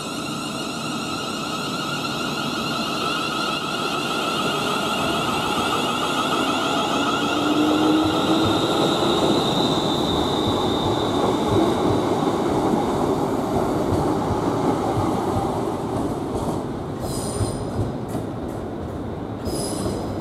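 ScotRail Class 380 electric multiple unit pulling out and passing close by: the rumble of its wheels on the rails builds and then eases, over a high electric whine of its traction equipment. Thin high wheel squeal comes near the end as it takes the curved track.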